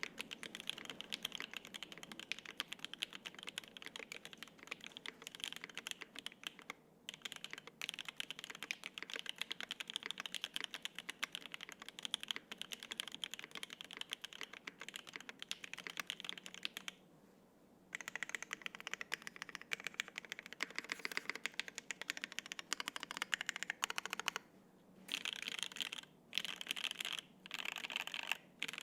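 Fast continuous typing on a gasket-mount 75% mechanical keyboard with lubed Alpaca V2 linear switches on an FR-4 plate and GMK double-shot ABS keycaps. It stops for about a second around the middle, and near the end it comes in short bursts with brief pauses.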